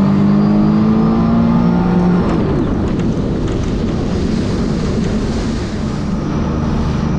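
Jet ski engine running at speed, its pitch sinking slightly for the first two seconds, then a steady rush of water and wind covers it until the engine tone comes back steady near the end.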